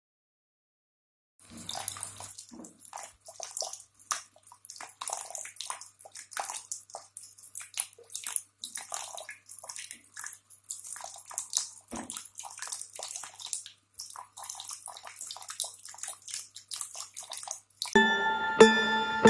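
Water from a small tabletop fountain splashing and trickling onto a spinning wheel of plastic spoons, in an irregular patter that starts about a second and a half in. Music starts near the end.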